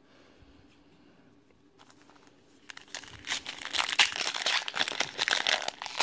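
Foil trading-card pack wrapper being torn open and crinkled by hand. After about three seconds of near quiet, a dense, crackly crinkling begins and keeps going.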